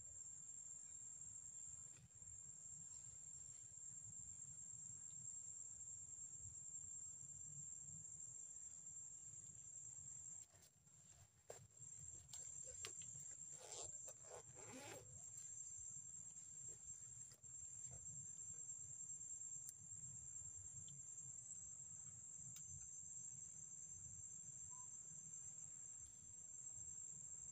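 Faint, steady, high-pitched insect chorus from the forest, over a low rumble. About halfway through there is a brief patch of rustling and clicks.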